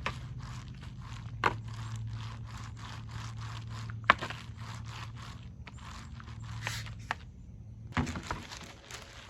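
Foam roller working shellac-based primer over a dresser's surface, making repeated scratchy, crackling strokes over a low steady hum. There are a few sharper knocks: one about a second and a half in, one around four seconds, and one near the end.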